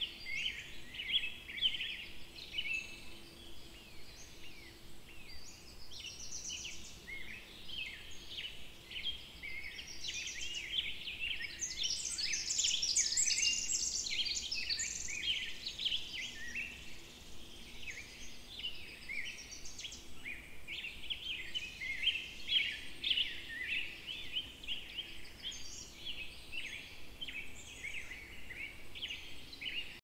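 A chorus of many small birds chirping and singing at once, a dense run of short high chirps that is busiest around the middle.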